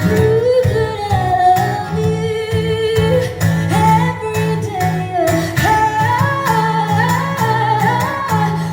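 Live rock-pop band performance: a woman's lead vocal singing a melody over guitar, bass and a steady beat.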